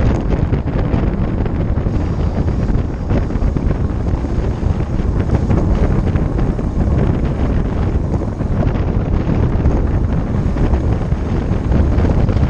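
Wind rushing over the microphone of a camera riding along on a moving road bicycle: a steady, loud, low rumble of buffeting.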